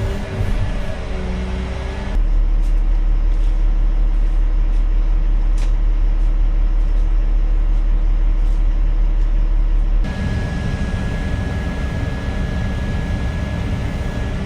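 Heavy diesel construction machinery running steadily, in three cut-together stretches; the middle stretch, about two to ten seconds in, is louder with a deep rumble and a steady hum.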